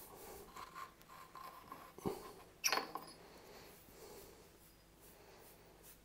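Faint handling sounds: scattered small clicks and rustles, with a knock about two seconds in and a sharper, louder clack just after it.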